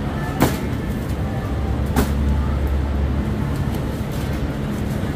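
Steady low machine hum, with two sharp knocks about a second and a half apart.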